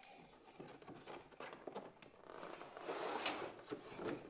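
Faint rustling and clicking of a clear plastic blister tray being worked out of a transparent plastic box, with a louder crinkling swell about three seconds in. The snug blister resists a little as it is pulled.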